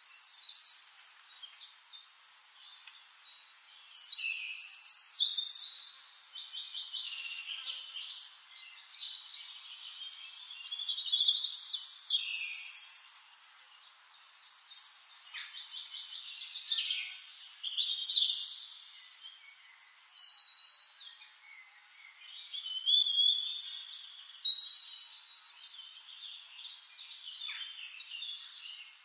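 Several songbirds singing: rapid trills, quick runs of repeated high chirps and short glides, in phrases that swell and fade every few seconds.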